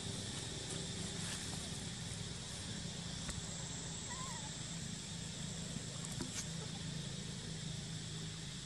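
Steady outdoor ambience: a continuous low hum with a thin, steady high-pitched buzz over it, a brief faint squeak about four seconds in, and a few faint clicks.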